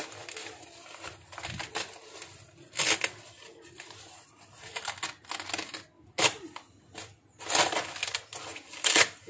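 Nylon fabric of a camera bag rustling and scraping as hands handle its padded lining and dividers, with a few louder rasping swishes, about three seconds in and twice near the end.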